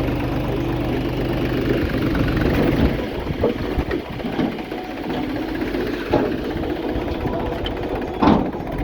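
Diesel engine of heavy farm or earthmoving machinery running steadily, its low hum dropping away about three seconds in. A few light knocks follow, then a sharper metallic clank near the end.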